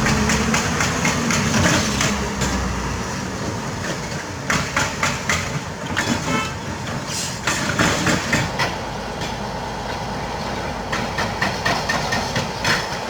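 Doosan 500LCV excavator working: its diesel engine runs with a steady drone. Clusters of metallic clanks and rattles come through three times, about a third of the way in, in the middle and near the end.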